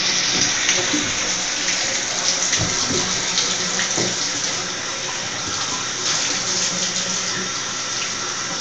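Bathtub faucet running: a steady rush of water pouring from the spout into the tub, with a few faint knocks and splashes.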